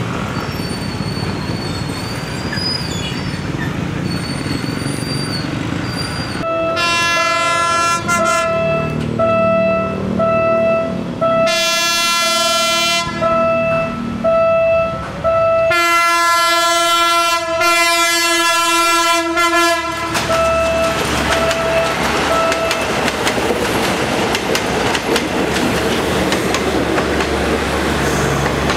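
Philippine National Railways diesel multiple unit sounding its horn in several long blasts over a pulsing warning tone as it nears a level crossing. For the last several seconds the horn stops and its wheels rumble and clack over the track as it passes close by.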